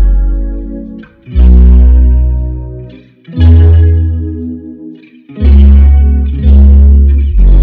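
Background music: guitar with effects, chords struck about every one to two seconds and left to ring out and fade, each over a deep bass note.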